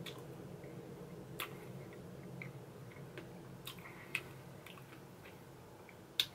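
Quiet eating of ice cream, with a few soft clicks and smacks from the mouth. Near the end a metal spoon scoops into the glass bowl and gives one sharp click, the loudest sound here.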